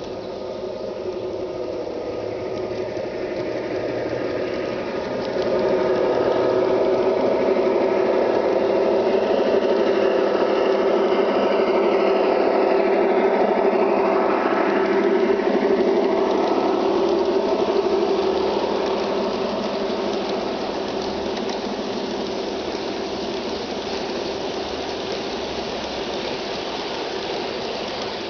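Large-scale garden model train running past: the locomotive's steady motor hum and the wheels rolling over the track, growing louder about five seconds in and loudest until about eighteen seconds in, then easing to a steady rolling rattle as the string of cars goes by.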